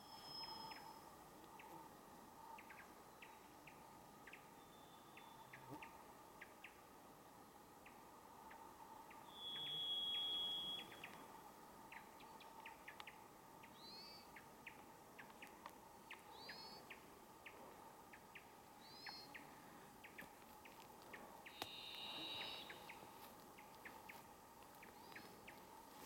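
Varied thrush singing: long, steady whistled notes, each held on a single pitch and each at a different pitch, spaced several seconds apart, the loudest about ten seconds in. Another bird gives short rising-and-falling notes every couple of seconds in the second half.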